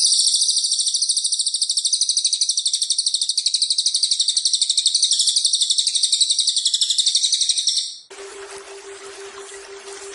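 Cililin bird's song: one long, very fast, high-pitched trill held for about eight seconds, then cutting off. Near the end, rushing waterfall noise with a steady low pulsing tone takes over.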